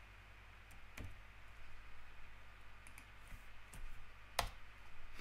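A few scattered computer keyboard keystrokes, the loudest about four and a half seconds in, over a faint steady low hum.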